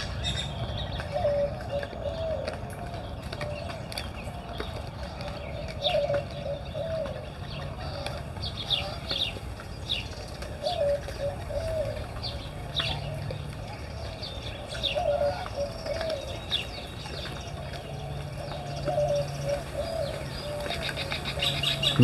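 Doves cooing over and over in short wavering calls, with scattered high chirps from small birds and a steady low hum underneath.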